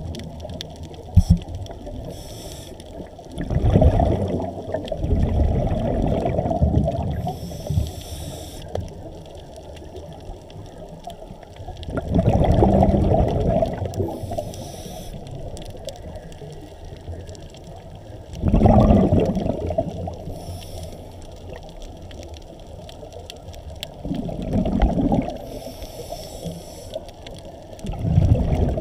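Underwater scuba exhalation: bubbles from a diver's regulator rising in muffled, bubbling bursts about every six seconds, with a low steady rumble between breaths.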